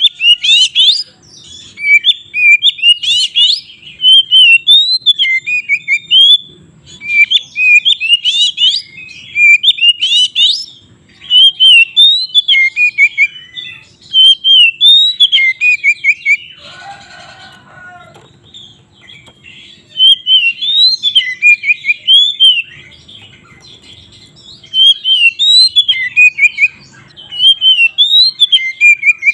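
Oriental magpie-robin (kacer) singing in loud bursts of fast, varied whistled phrases separated by short pauses, with one brief harsher rasping note about seventeen seconds in. This is the agitated, fighting-style song that is used to provoke other magpie-robins.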